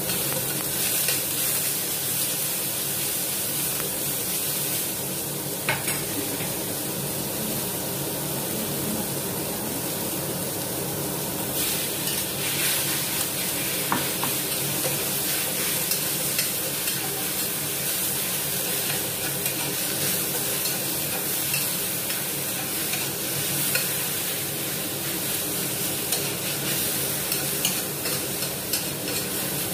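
Sliced onions and beef stir-frying in a steel wok over a gas flame: a steady sizzle, with a metal spatula scraping and now and then clicking against the wok as the food is tossed.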